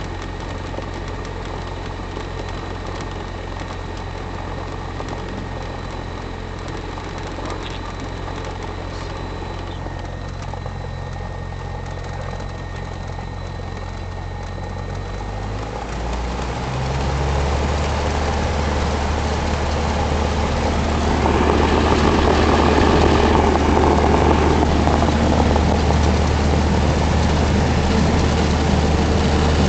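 Cessna 172's piston engine and propeller heard from inside the cabin, running steadily at low power, then rising in pitch and growing louder about halfway through as the throttle is opened for the takeoff run, with a rushing noise building a few seconds later as the plane picks up speed.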